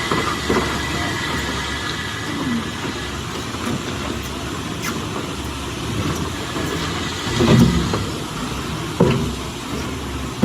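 Heavy machinery running with a steady rumble and noise, broken by a few knocks, the two loudest near the end.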